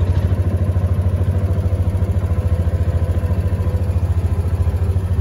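A vehicle's engine running steadily, a fast, even low throb with no change in speed.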